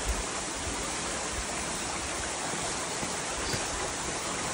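Steady rush of water from a nearby waterfall and its stream.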